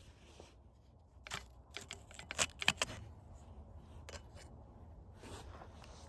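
A quick run of sharp clicks and knocks from tools or parts being handled during work on a car, the loudest about two and a half seconds in, with a couple more later over a low steady hum.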